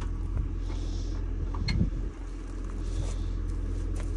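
Tractor engine running steadily with a low rumble. A few light clicks and one louder knock come a little under two seconds in.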